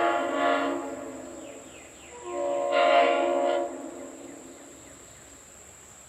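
Tampa-era Leslie RS5T five-chime train horn blowing its chord in short blasts: one blast cuts off about half a second in and rings away, then a second blast of about a second and a half starts about two seconds in, swells, and cuts off, fading out afterwards.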